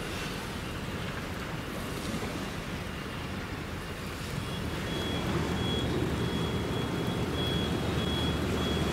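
Steady low vehicle engine rumble that grows louder about five seconds in, joined about four seconds in by a high electronic beep repeating at an even pace, like a vehicle's reversing alarm, over a steady background hiss.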